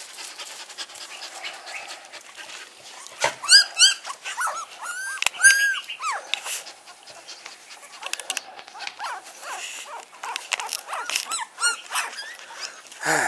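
Young puppies crying: a run of high-pitched whines and yelps, each rising and falling in pitch, thickest a few seconds in and again near the end.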